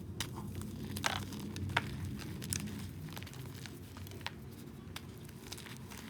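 Balls of reformed gym chalk being crushed: a run of dry, irregular crunches and crackles, the sharpest about one, two and two and a half seconds in.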